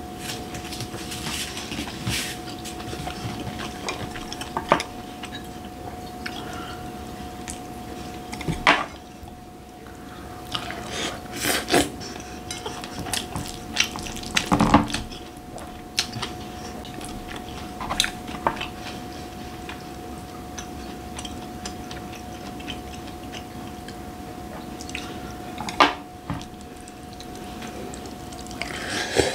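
A wooden spoon stirring wet curry rice in a glass bowl: scraping, with sharp knocks and clinks of the spoon against the glass now and then. A steady hum runs underneath.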